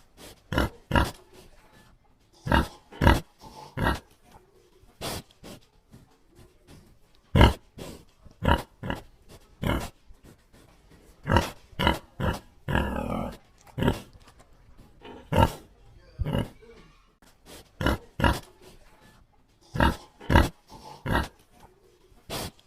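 A pig grunting over and over in short, separate grunts, often two in quick succession, with one longer, drawn-out grunt about halfway through.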